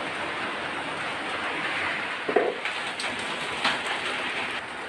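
Beef rendang in coconut milk simmering in an aluminium wok over a wood fire: a steady sizzling, bubbling hiss with a few light clicks and a short squeak a little before halfway.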